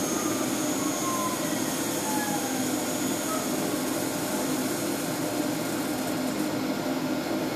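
Screen PT-R8100 platesetter running with a steady machine whir, over which a faint whine falls in pitch during the first three seconds, as the imaging drum slows once plate recording has reached 100%.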